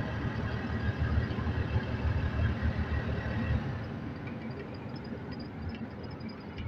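Low, uneven rumble of a vehicle running, with road noise, easing somewhat about four seconds in.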